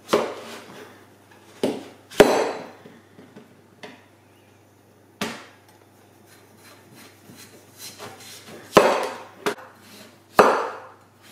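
Large chef's knife chopping through a tough blue-skinned pumpkin, the blade hitting the cutting board about seven times at uneven intervals, with a long gap in the middle.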